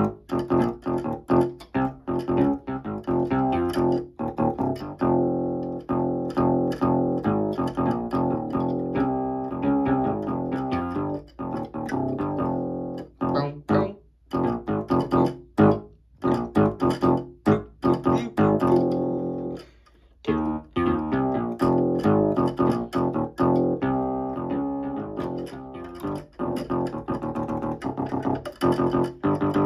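Music led by plucked guitar notes over a bass line, a quick run of short notes with a couple of brief breaks partway through.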